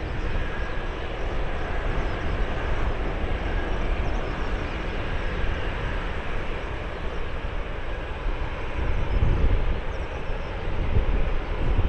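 Boeing 787-9 airliner's jet engines heard from a distance as it rolls along a wet runway: a steady rushing noise with a low rumble.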